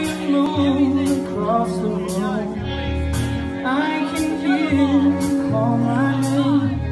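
Live rock band playing: a man singing over electric guitar, bass and drum kit, with a sharp drum hit about once a second.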